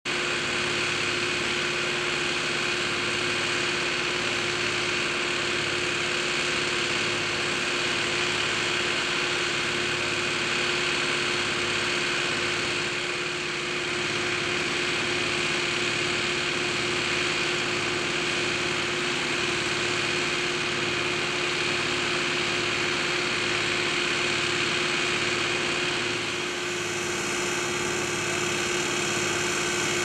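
Claas Jaguar self-propelled forage harvester running under load while chopping silage corn, with the tractors pulling its silage trailers alongside. It makes a steady machine drone with a held whine and a low, regular pulsing. The sound changes near the end.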